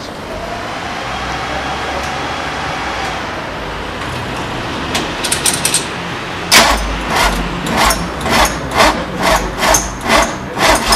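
Ford GT40 replica's engine being cranked over on the starter, a few light clicks and then a loud, even churning of about two or three beats a second in the last few seconds, before it catches.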